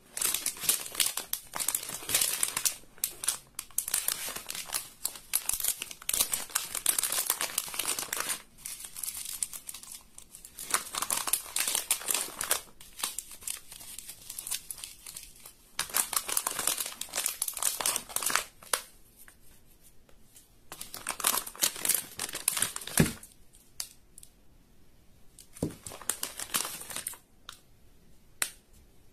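Slime being worked by hand, crackling and crinkling in bursts of a few seconds with short quieter pauses between, and a couple of sharp clicks in the later half.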